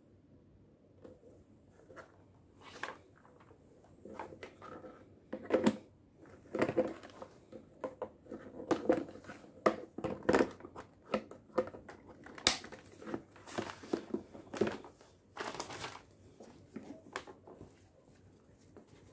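Hands handling the plastic head of a Black & Decker steam mop and its microfibre cleaning pad: a run of irregular plastic clicks and knocks with cloth rustling and scraping, busiest and loudest in the middle, as the pad is taken off the mop head.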